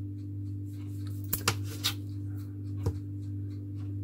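Plastic dough scraper clicking against a marble countertop as it cuts slices from a rolled puff-pastry log: four short, sharp knocks over a steady low hum.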